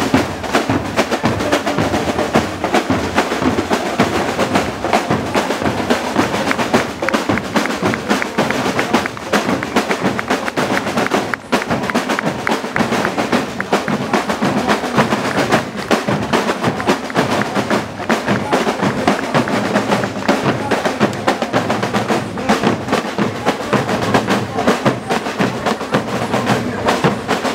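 Marching band drum line playing a continuous cadence on snare drums and bass drums, with crash cymbals, in dense rapid strokes.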